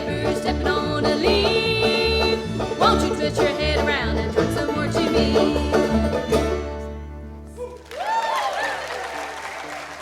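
Live bluegrass band playing, the banjo prominent, with the tune ending about seven seconds in. Then the audience cheers and applauds, with whoops.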